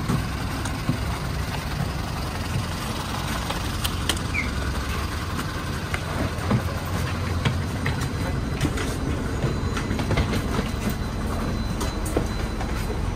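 Bus engine running with a steady low rumble, with scattered clicks and knocks on top.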